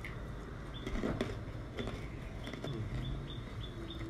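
A series of short, high chirps, each dropping a little in pitch, repeating about three to four times a second from a small animal, with a few soft clicks and rustles about a second in.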